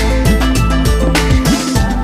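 Loud background music with a steady beat, bass line and drum hits.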